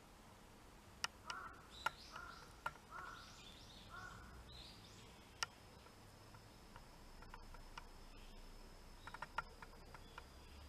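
Faint bird calls: four short repeated calls in the first half, with high arched chirps. Several sharp clicks are heard, and a thin steady high tone sets in about halfway through.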